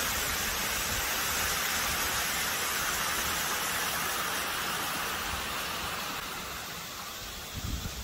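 Overflow water pouring down a lake spillway: a steady rushing of falling water that slowly fades over the last few seconds, with a couple of brief low bumps near the end.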